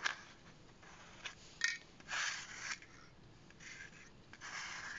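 Fingers rubbing and scraping on a loudspeaker cone while picking small bits of wire off it: a string of short, soft scratchy rustles.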